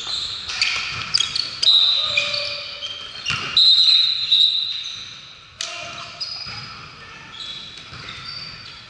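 Basketball sneakers squeaking on a hardwood gym floor: many short, high squeals, one after another, the loudest lasting about a second about three and a half seconds in. A few ball bounces and voices ring in the echoing gym.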